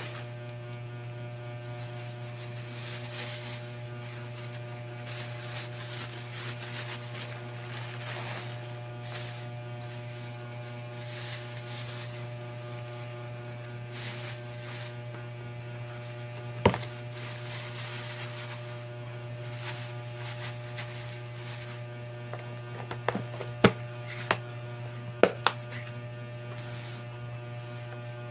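A steady electrical hum with evenly stacked overtones. One sharp knock comes a little past the middle, and a quick cluster of sharp knocks and clicks comes near the end.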